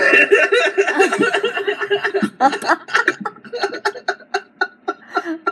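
A person laughing hard: a loud, unbroken burst of laughter for about two seconds, then short pulses of laughter, several a second, to the end.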